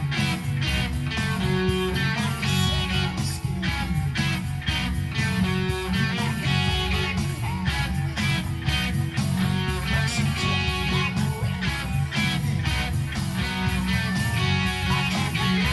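Gretsch electric guitar with a Bigsby vibrato tailpiece, played through an amplifier: a picked instrumental rock line over an accompaniment with a steady beat and a strong low end.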